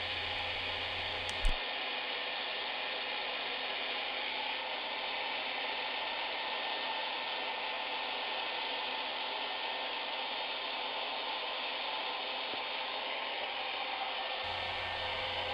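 Hair dryer running steadily, blowing hot air to heat a sticker label and soften its adhesive, with a small click about a second and a half in.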